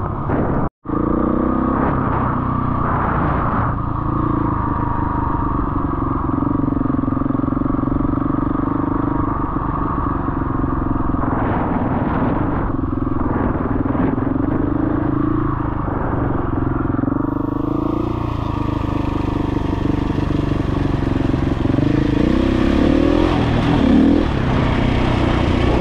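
Husqvarna 701 rally motorcycle's single-cylinder four-stroke engine running under way on a dirt track, its revs rising and falling with the throttle. It drops out for an instant about a second in, and a rushing hiss joins it for the last third.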